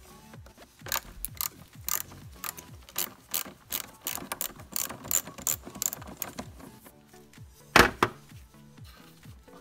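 A 10 mm socket ratchet clicking in repeated short strokes as the negative battery terminal nut is loosened. A single loud knock comes near the end.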